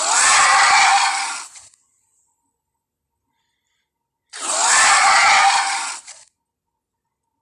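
Two harsh, screeching Allosaurus roar sound effects, each about a second and a half long, the second starting about four seconds after the first.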